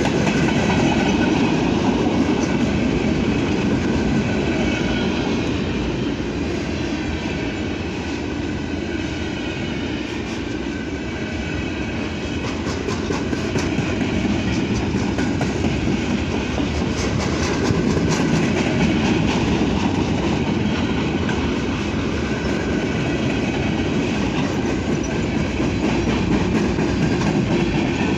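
Freight train cars rolling past with a steady rumble and wheels clicking over the rail joints.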